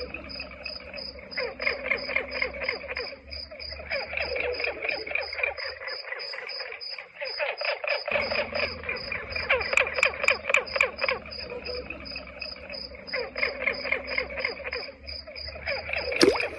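Frogs calling in a dense chorus, their rapid call trains coming and going every few seconds, over an insect's steady high-pitched pulsing. A single sharp sound comes near the end.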